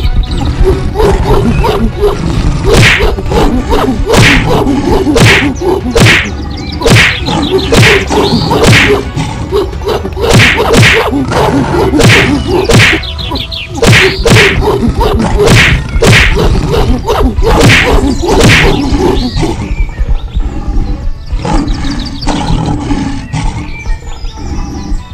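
Cartoon fight sound effects: a rapid series of sharp whacks and smacks, one or two a second, from about two seconds in until around three quarters of the way through, over background music.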